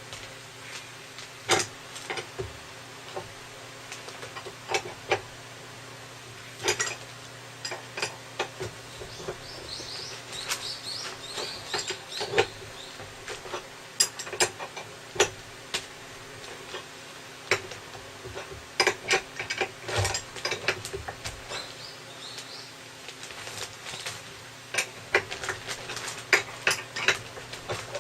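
Irregular metal clinks and knocks of hand tools working on scooter rear-end parts, with a faint squeak about a third of the way in, over a steady low hum.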